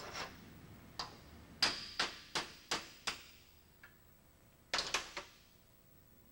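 Hammer blows on a Stanley screwdriver clamped in a bench vise, knocking its handle off. About seven sharp strikes come in the first three seconds, some with a short metallic ring, then after a pause a quick cluster of strikes about five seconds in.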